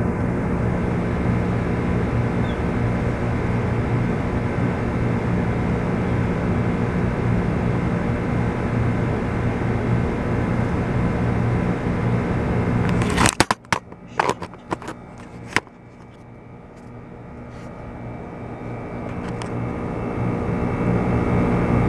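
A steady low machine hum with several steady tones. About 13 seconds in it drops away suddenly amid a few sharp clicks, then swells back up gradually toward the end.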